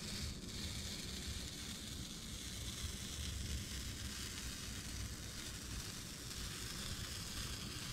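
FrogTape painter's masking tape being peeled slowly and steadily off a freshly painted fibreglass hull, a continuous even hiss as the tape comes away to reveal the paint line.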